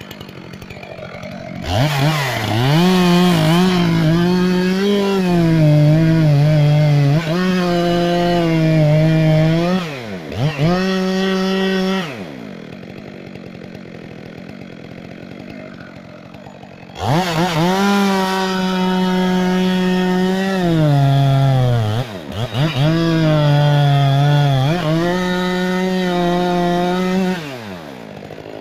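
Two-stroke chainsaw revved up and cutting wood in two long bouts, its pitch sagging under load in the cut and rising again. Between the bouts it drops back to a quieter idle.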